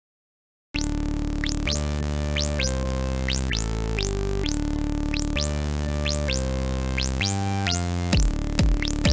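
Background music: electronic synthesizer music with steady chord changes, and a drum-machine beat coming in about eight seconds in. It starts suddenly after a brief silence at the start.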